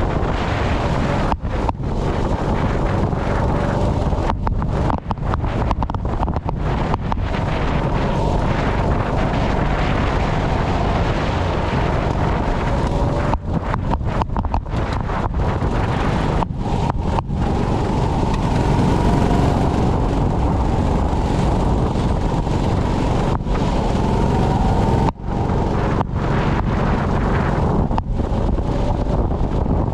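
Sprint go-kart engine running at speed, its pitch rising and falling with the throttle, under heavy wind noise on the microphone. The sound cuts out briefly many times.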